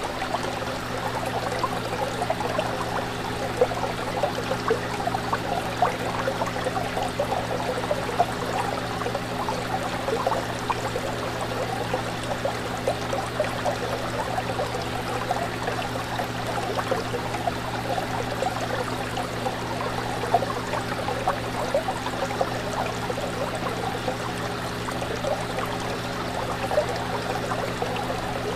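Fish tank water trickling and bubbling steadily, with many small splashes over a steady low hum.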